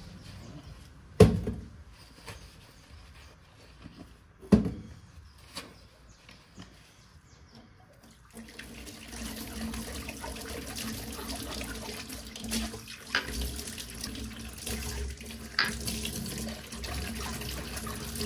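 Small glass shot glasses being washed in a stainless-steel sink. Two sharp knocks of glass in the sink come in the first five seconds. About eight seconds in the tap starts running over a glass being rinsed, with a few light clinks.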